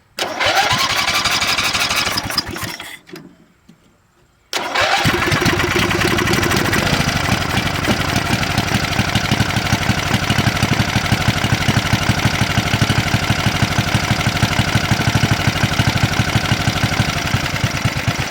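Simplicity SunRunner riding mower engine being started on the key with a little choke. A first attempt of about two seconds dies away, then a second try about four and a half seconds in catches and settles into steady, even running. It is the first start after ignition switch and PTO interlock repairs, and it seems to run pretty good.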